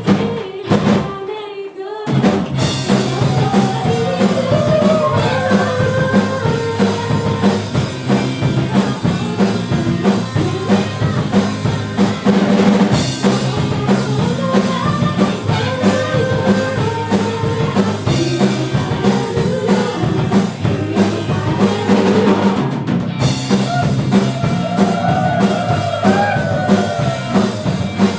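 Live rock band playing with a singer: drum kit, bass and guitars under a wavering vocal line. The whole band stops for about a second and a half near the start, then comes back in.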